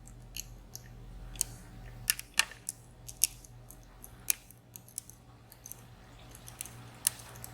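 Small metallic clicks and taps from handling a high-security dimple lock and its picking tools, about a dozen at irregular intervals, the loudest around two seconds in and again near the end, over a faint steady hum.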